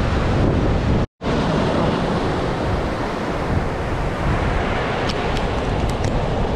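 Ocean surf breaking and washing up the beach, with wind buffeting the microphone. The sound drops out for a split second about a second in.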